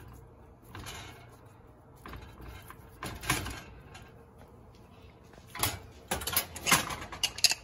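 Handling sounds from an aluminium pressure cooker. Soft rustling as a damp cotton cloth is tucked over potatoes inside the pot, then a run of sharp metal scrapes and knocks near the end as the cooker is shifted on the stove.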